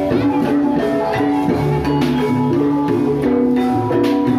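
Live gamelan-style ebeg accompaniment: tuned mallet percussion playing quick runs of short notes over drums, loud and unbroken.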